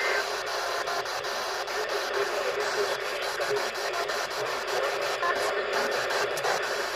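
Radio static over weak broadcast reception: a steady hiss crackling with frequent clicks, with a faint voice buried in it.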